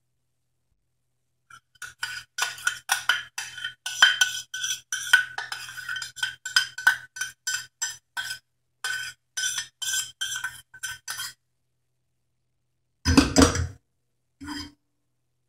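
Metal spoon scraping and clinking against a small pan as the sauce is scraped out of it, a quick run of clinks for about ten seconds. Then a heavier clunk as the emptied pan is set down on the gas stove's metal grate, and a lighter knock after it.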